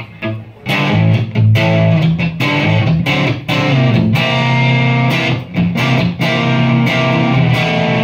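Stratocaster-style electric guitar played through a Pedalbot Royal Grit drive pedal into an amp: distorted chords, choppy stabs at first, then sustained ringing chords and notes.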